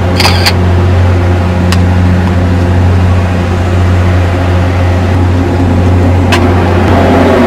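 Loud, steady low hum of a ship's machinery running aboard a navy vessel, with a few short clicks over it.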